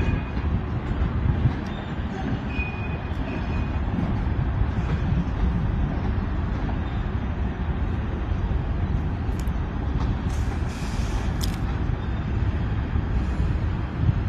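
A diesel switcher locomotive and a slow-moving cut of tank cars give a steady low rumble, with a short hiss of air about ten seconds in.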